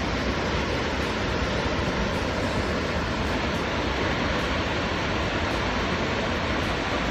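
Steady, even rush of a waterfall's falling water, with no changes or separate knocks.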